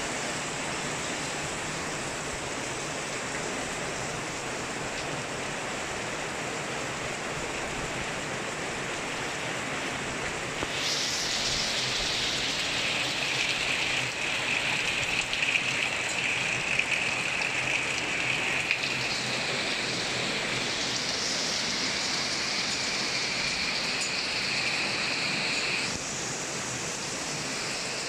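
Heavy rain pouring down in a thunderstorm, a steady hiss. About ten seconds in it grows louder and hissier, and it drops back a couple of seconds before the end.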